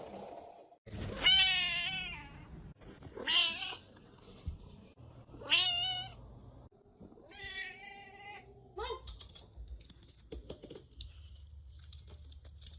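A cat meowing four times, about two seconds apart, each meow a drawn-out call that bends in pitch, with a shorter, lower cry and a few faint taps after them.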